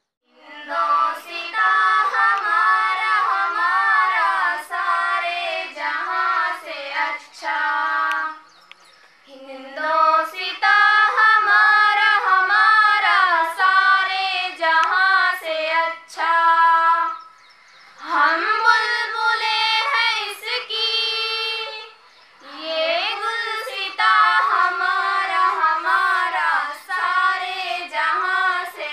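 Two girls singing a patriotic song unaccompanied into a microphone, in long phrases broken by three short pauses.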